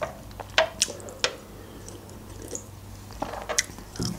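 Close-miked wet mouth sounds of chewing: a few short smacks and clicks, spaced out, over a faint steady hum.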